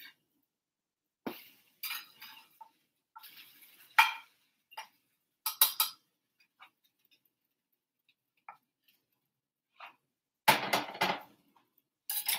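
Metal tongs and a frying pan clinking and knocking against each other and the stove grates: a series of separate clinks, with a longer clatter about ten and a half seconds in.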